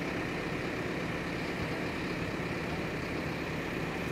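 A crane's engine running steadily while it holds a heavy suspended load, an even, unbroken engine hum.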